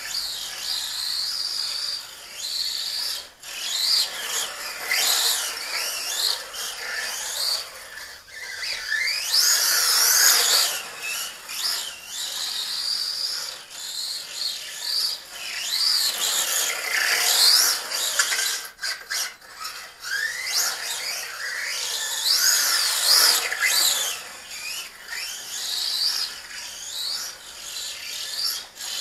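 LC Racing short course RC truck's brushless motor (Racerstar 2845 5900kv on a 2S LiPo) whining as the truck is driven hard, the high whine rising and falling again and again as it speeds up and slows, over a gritty rasping noise.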